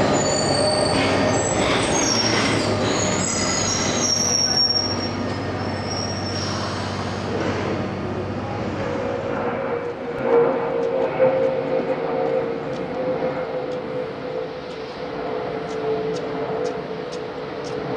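London Underground C stock train pulling out of the platform into the tunnel, its wheels squealing on the rails in several high-pitched squeals over a rumble that fades over the first seven seconds or so. A steady hum follows.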